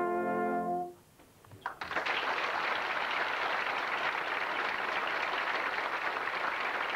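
A brass band's final held chord stops about a second in. After a short gap, a few claps start and quickly swell into steady audience applause.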